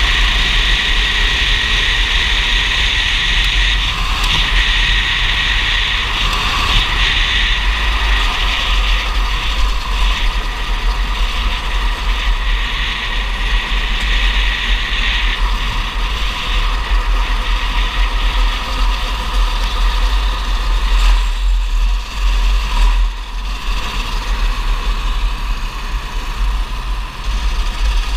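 Racing kart's engine running hard at high revs, heard from an onboard camera, over a constant heavy low rumble. The engine note falls off briefly about three quarters of the way through, then picks up again.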